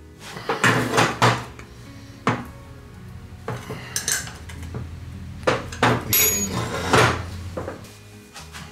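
Metal parts of a brake pedal assembly clinking and knocking as the pedal is fitted onto its pivot shaft, a series of separate sharp knocks.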